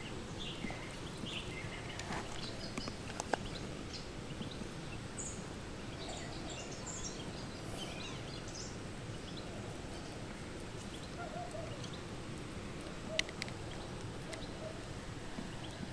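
Outdoor riverside ambience with small birds chirping here and there, and two sharp clicks from handling the fishing tackle, the louder one near the end.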